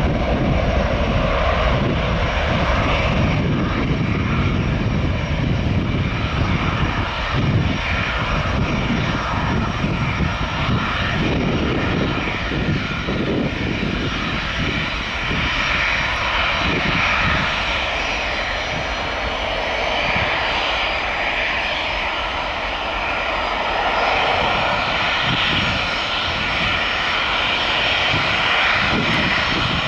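Boeing 737 jet airliner's twin engines at takeoff thrust as it rolls down the runway and climbs away: a continuous jet roar with a deep rumble and a faint steady whine in it.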